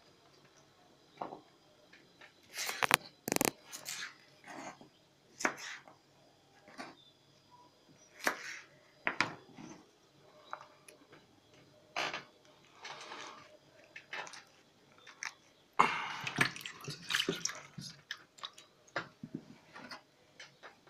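Scattered light clicks and knocks of kitchen prep: cut vegetables and garlic cloves being handled in an earthenware güveç pot, with a denser run of clatter about three-quarters through.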